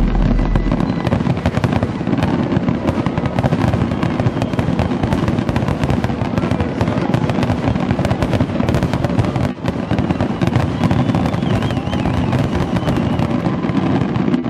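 Fireworks display in a dense barrage: many shells and crackling stars going off at once, a continuous fast crackle of sharp cracks over a low rumble of bangs, with a brief lull about nine and a half seconds in.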